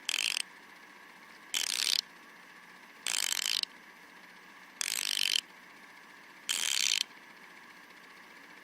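TEKTON 90-tooth stubby ratchet being swung back and forth. Its pawl gives five short bursts of fine, rapid clicking, one about every second and a half.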